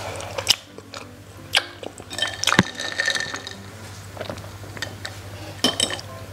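Ice and a metal straw clinking against a glass jar of iced tea as it is drunk through the straw: a few separate sharp clinks, with a short ringing, rattling cluster a couple of seconds in.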